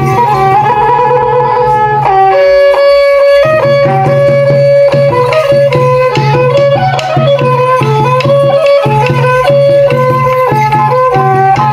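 Khmer traditional ngũ âm (pinpeat-style) ensemble music: a reed wind instrument carries a stepping, held melody over steady drumming and struck percussion. The drums drop out briefly twice.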